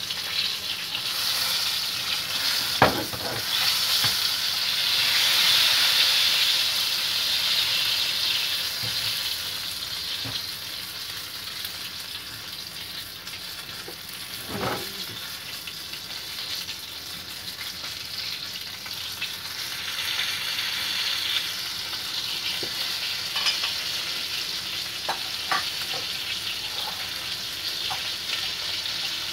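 Breaded chicken pieces deep-frying in a wok of hot oil: a steady sizzle that swells for a few seconds early on, then settles. A couple of sharp knocks come through, the loudest about three seconds in and another near the middle.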